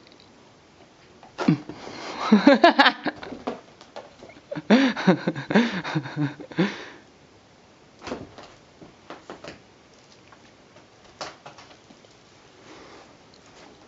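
Two wordless vocal sounds with a wavering pitch, each about two seconds long, the first from about a second and a half in and the second from about five seconds in. Between and after them come scattered soft taps and thumps from a Ragdoll cat batting and rolling with a toy on the carpet.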